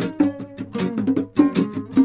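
Live reggae band playing between sung lines: short, choppy plucked-string chords over bass notes and a steady beat.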